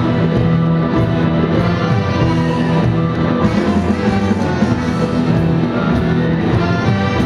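A live band playing amplified music, with electric guitar and saxophone over a steady beat.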